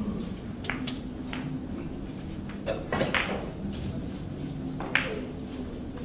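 A pool shot: the cue tip strikes the cue ball and billiard balls click against each other, followed by a couple of louder sharp knocks about three and five seconds in, over a low steady hum.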